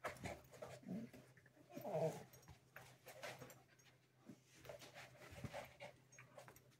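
Two dogs play-wrestling, a husky puppy and a larger black dog, making faint grunts and play-growls amid soft scuffling, with one louder vocal sound about two seconds in.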